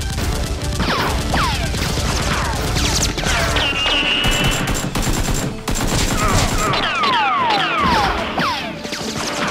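Rapid bursts of dubbed-in automatic gunfire sound effects with many short falling whistles, under background music.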